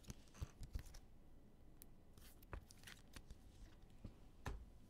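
Faint rustling and a few sharp clicks of trading cards and their packaging being handled.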